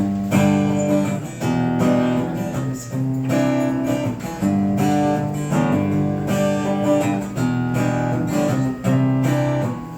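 Acoustic guitar strumming chords, an instrumental intro to a blues-tinged song.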